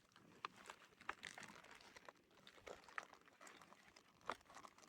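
Faint crinkling and scattered small clicks of plastic MRE pouches and packets being handled.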